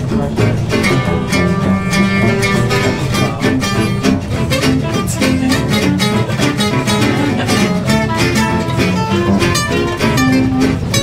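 Acoustic jazz band playing a swing tune: acoustic guitars strumming a steady rhythm, with upright bass and a clarinet melody.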